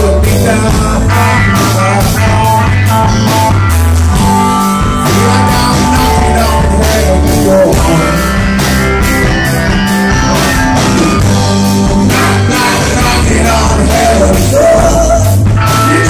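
Live rock band playing loudly, with guitars, a drum kit beating a steady rhythm, and a male lead singer singing into the microphone.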